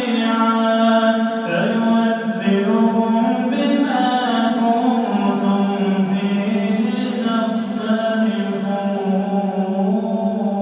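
A man reciting the Quran in Arabic: a solo melodic chanted recitation (tajweed), drawing out long held notes that bend up and down in pitch.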